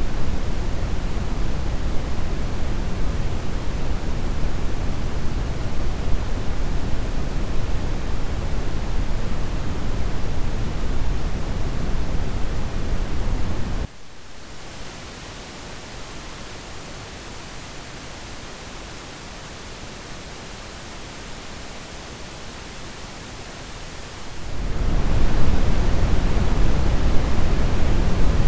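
Synthesized coloured noise (pink and brown noise for masking tinnitus), a steady hiss heavy in the low end. About 14 s in it cuts suddenly to a quieter, thinner noise with much less bass, and near 25 s the fuller, bass-heavy noise fades back in.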